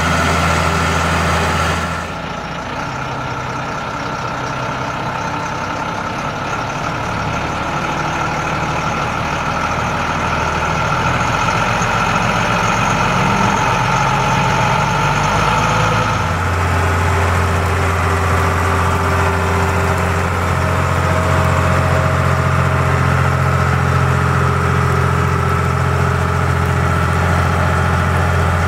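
Schlüter Eurotrac 1700 LS tractor's diesel engine running steadily as the tractor pulls a three-tine deep subsoiler through vineyard soil. The engine note shifts in pitch and loudness about two seconds in and again about halfway through.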